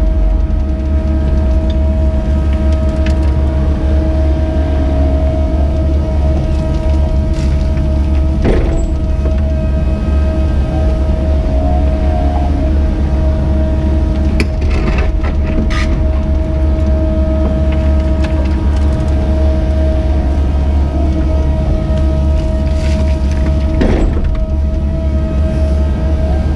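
Cat 307E2 mini excavator heard from inside the cab while digging: the diesel engine and hydraulics run steadily as a low drone with a steady whine above it. A few short knocks and scrapes come through, about a third of the way in, around the middle, and near the end.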